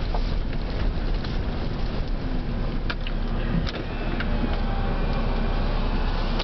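Truck running and rolling slowly along a dirt road, heard from inside the cab: a steady engine and road rumble with a few small clicks and knocks.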